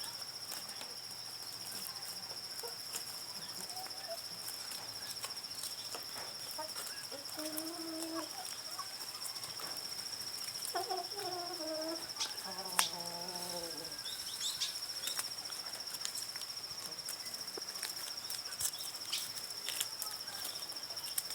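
An insect trills in one steady high note, with chickens giving a few short clucking calls around the middle, and scattered faint clicks.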